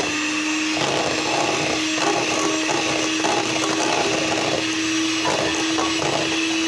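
Electric hand mixer running at a steady speed, its beaters creaming butter and sugar in a metal bowl, with an irregular clatter of the beaters against the bowl over the steady motor whine.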